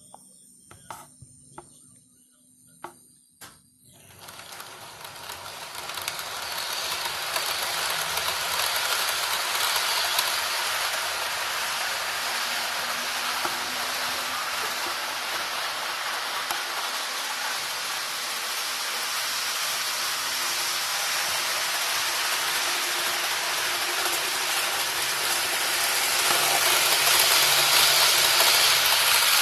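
A few faint clicks, then from about four seconds in a steady rushing rumble of model trains running along the layout's track, growing louder toward the end.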